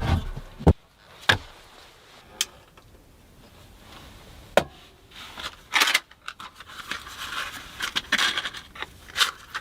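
Several sharp knocks and clicks spaced a second or two apart, then from about halfway on a busier stretch of scraping and rubbing, as of objects being handled and moved.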